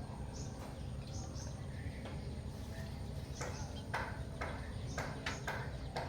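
Small bird chirping: short, sharp chirps, a few scattered at first, then a quicker run of about two a second in the second half, over a steady low rumble.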